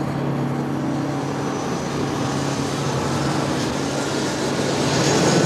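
Jet airliner in flight: a steady rush of engine noise with a faint high whine, and a low hum that fades out about halfway through.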